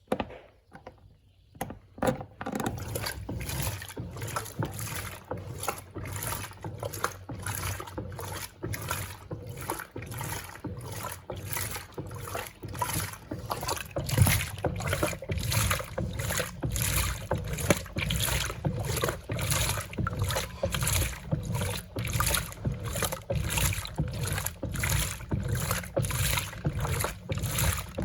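Electrolux Turbo Compacta 7 kg (LTC07) washing machine agitating a load, water and clothes sloshing back and forth in an even rhythm of about two strokes a second, starting about two seconds in.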